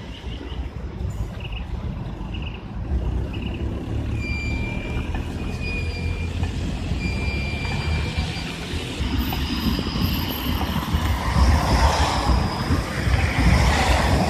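A Vityaz-M 71-931M low-floor tram approaches on its rails and passes close by. Its running noise builds steadily and is loudest in the last few seconds. A few short, high beeps sound in the first seconds.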